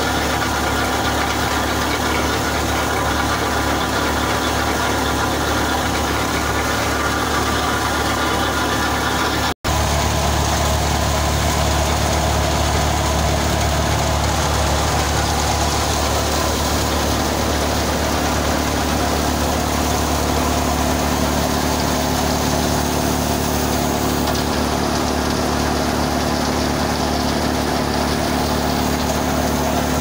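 Belt-driven thresher threshing canola, running at a steady pace: an even engine hum with the whirr of the threshing drum and belt drive. The sound drops out for an instant about ten seconds in.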